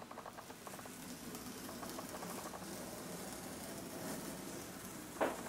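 Adhesive seal tape being slowly peeled off a cardboard box: a faint, fine crackle, with a short sharp snap a little before the end.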